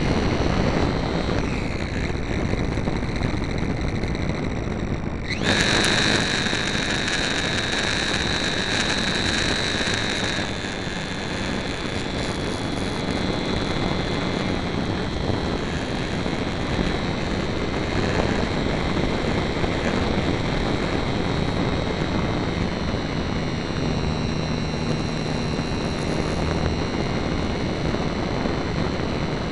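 Onboard sound of an electric RC airplane's motor and propeller whining steadily, with wind rushing over the camera's microphone. About five seconds in the whine suddenly climbs in pitch and gets louder as the throttle comes up, holds there for about five seconds, then eases back.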